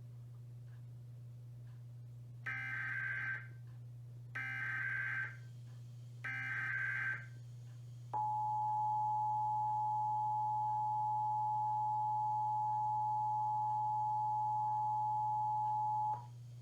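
Emergency Alert System test signal: three short bursts of SAME digital header data, each under a second, then about eight seconds in the EAS two-tone attention signal (853 and 960 Hz sounded together), a steady dual tone lasting about eight seconds.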